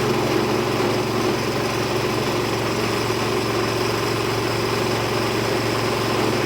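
Small engine steadily running a multi-function chopper and grinder machine, an even hum with no change in speed.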